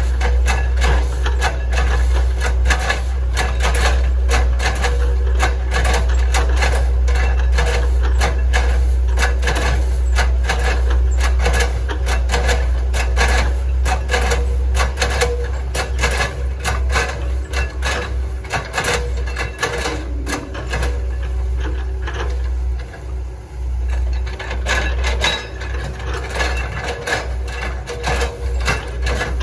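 Hitachi ZAXIS 110 excavator's diesel engine running steadily with a deep drone, under dense, irregular knocking and cracking as it chops up oil palm trunks. The knocking eases briefly a little past two-thirds of the way through.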